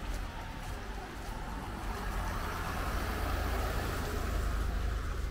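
An SUV drives slowly past at close range, its engine and tyres growing louder as it comes alongside, loudest about three to five seconds in.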